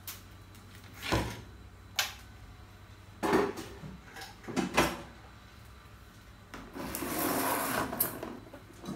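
Things being handled on a kitchen shelf: a few separate knocks as items are lifted and set down, then, about two-thirds of the way in, a longer scraping rub as a plastic egg box is slid along the shelf.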